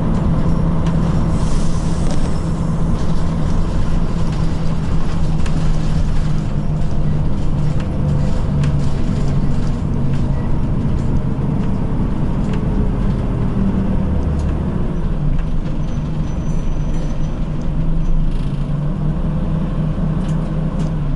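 Interior of a Nishitetsu city bus on the move: a steady engine drone whose pitch shifts in steps, under road noise, with small rattles and clicks from the cabin.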